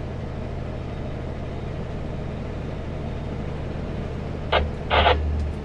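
Kenworth W900L semi truck's diesel engine droning steadily at cruise, with road noise heard inside the cab. Two brief louder sounds come near the end.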